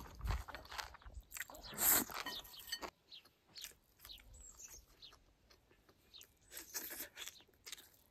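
A person eating rice with stir-fried pork and garlic sprouts: close-up chewing and mouth sounds with small clicks of chopsticks against the bowl. It is loudest about two seconds in and quieter, more scattered after about three seconds.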